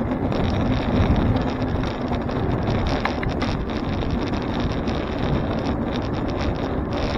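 Wind rushing over a bike-mounted camera's microphone as the bicycle rides along, a steady noise with low rumble.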